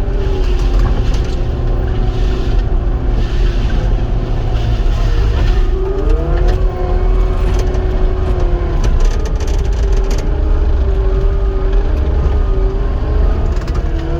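Caterpillar 259 skid steer's diesel engine running steadily under work. A whine in its note rises in pitch about six seconds in, settles again, and rises once more near the end as the machine is worked.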